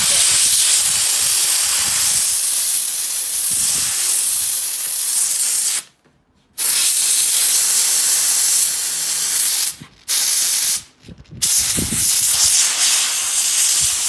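Iris Ohyama canister steam cleaner jetting steam from its narrow nozzle: a loud, steady hiss that stops briefly three times, about six, ten and eleven seconds in, and starts again each time.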